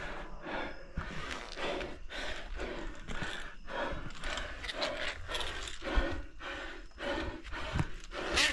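A person breathing hard in quick panting breaths, about two or three a second, with scattered scuffs and light knocks, as from scrambling out of a pit.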